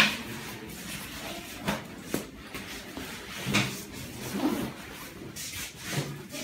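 Scuffling and handling noises: clothes rustling, with a few light knocks and clicks. The sharpest knock comes right at the start.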